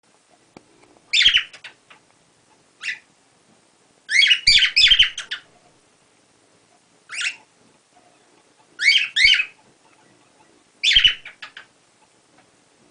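Pet cockatiel calling in short bursts of quick chirps, about six bursts spaced a second or two apart.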